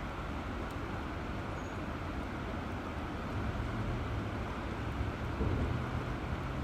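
Steady, even rushing of river water.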